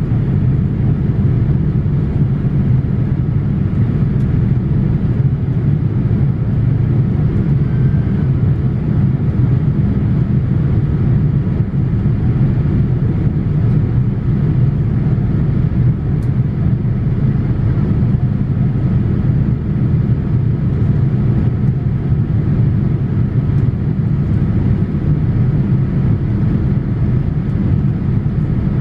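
Steady low roar of a Boeing 787-8 heard from inside the passenger cabin, its Rolls-Royce Trent 1000 engines and the airflow running evenly as the airliner climbs out after takeoff.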